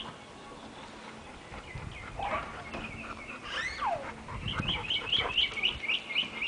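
A child's short falling cry a little before the middle, then a run of quick high chirps, about four a second, in the second half, typical of a small bird calling.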